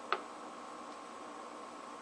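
A single sharp click just after the start, over a faint steady hiss.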